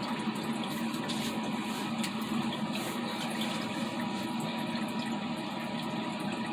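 Portable evaporative air cooler running in cooling mode: a steady fan whir with its water pump circulating water through the wet cloth pad.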